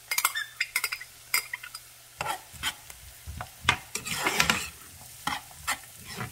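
Diced celery, onion and minced garlic sizzling in oil and butter in a skillet: light crackling as the garlic goes in, then a metal spoon stirring and scraping through the vegetables from about two seconds in.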